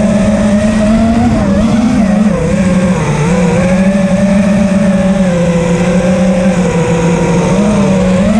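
FPV racing quadcopter's brushless motors and propellers buzzing steadily in flight, the pitch wavering slightly with throttle changes and dipping briefly about three seconds in.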